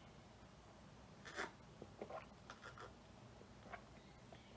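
Near silence with a few faint short clicks and gulps: a person drinking juice from a glass and swallowing.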